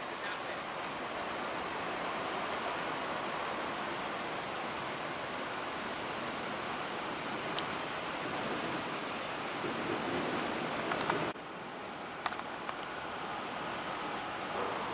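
Steady street traffic noise, cars driving past with a hiss of tyres, swelling as a car goes by midway and dropping off suddenly about eleven seconds in.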